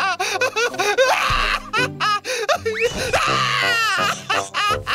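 A cartoon character's voice crying loudly in exaggerated, repeated sobbing wails, over background music.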